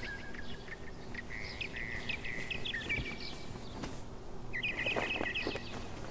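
Songbirds chirping: a run of short sweeping chirps and quick repeated notes, then a fast series of chirps about four and a half seconds in, over a faint steady background hum.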